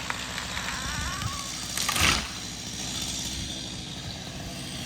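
Stihl MS250 chainsaw idling steadily, with a single loud crash about two seconds in as a felled Japanese cedar hits the ground.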